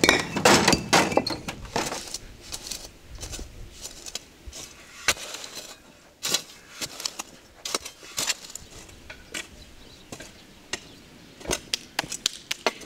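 Sawn stone blocks knocking and scraping against one another as they are handled and set down, with a shovel scraping dry dirt. A cluster of loud knocks comes at the start, then scattered sharp clicks and knocks, bunching up again near the end.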